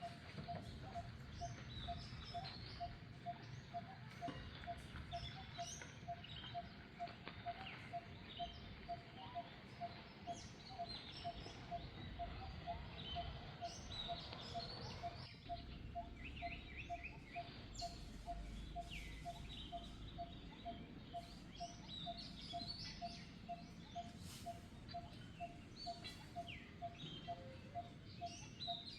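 Birds calling: one repeats a single short note steadily, about twice a second, while other birds chirp higher up now and then.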